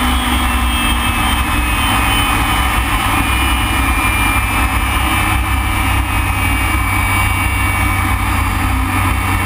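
BAC Strikemaster's single Rolls-Royce Viper turbojet heard from inside the cockpit: a steady loud rush and rumble with a high whine that drifts slightly lower in pitch.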